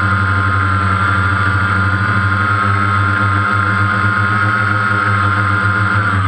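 DJI Phantom quadcopter's motors and propellers whining steadily at hover, close to the onboard camera's microphone.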